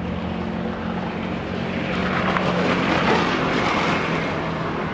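Street traffic: a motor vehicle passing along the road, its tyre and engine noise swelling about two to three seconds in and then fading, over a steady low hum.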